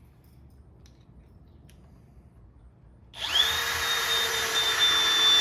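A few faint clicks, then about three seconds in a cordless screw gun starts up with a quick rising whine and runs at a steady pitch, driving a screw into wood.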